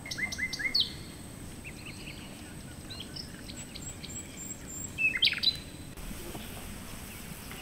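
Birds chirping: a quick run of four short chirps near the start, a few more around three seconds in and a louder cluster about five seconds in, over a steady low background noise.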